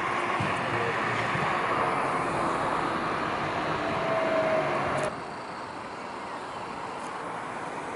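Road traffic driving past close by, including a car and a battery-electric garbage truck, heard as a steady rush of road noise. About five seconds in it cuts suddenly to quieter, more distant traffic.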